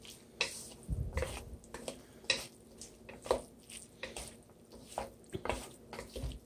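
A cooking utensil clicking and knocking against a wok as food is stirred and scraped, in irregular light taps about two or three a second with a few duller knocks.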